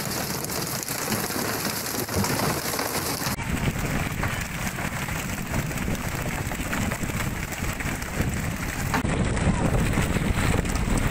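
Steady hiss of wind and splashing sea water on an open fishing boat at sea. About three seconds in the sound changes abruptly to a heavier, lower rumble of wind on the microphone.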